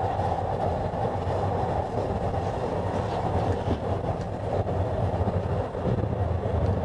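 Automated elevated subway train running along its track, heard from inside the driver's cab: a steady, even running noise, mostly low in pitch.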